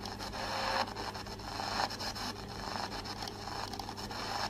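Shortwave static from an SI4732 all-band receiver's speaker in AM mode as its tuning knob is turned step by step, with no station coming through. The hiss swells and dips, broken by irregular clicks and chuffing as the frequency changes, a noise when turning the VFO that this receiver is criticised for.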